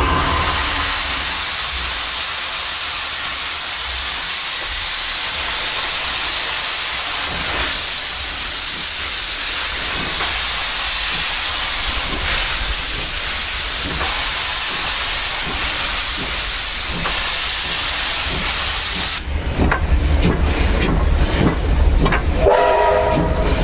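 Baldwin 2-8-2 steam locomotive letting off steam in a loud, steady hiss that cuts off suddenly about 19 seconds in. A low rumble with irregular clanks and knocks from the running gear follows, and a brief ringing tone comes near the end.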